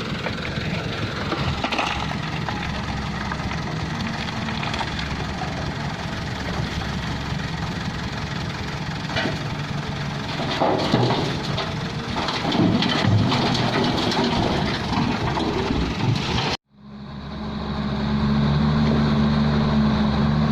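Diesel engines of heavy quarry machinery (excavator and dump truck) running, with scattered clanks and knocks of work. About three-quarters of the way through, the sound cuts out for a moment and comes back as a steadier, even engine hum.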